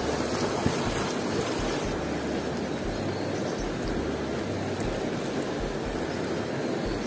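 Steady rushing of river water, with the low rumble of wind buffeting the microphone.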